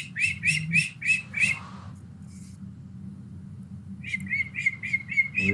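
A bird chirping in two runs of quick, evenly repeated high calls, about three a second: one run in the first two seconds, the other starting about four seconds in.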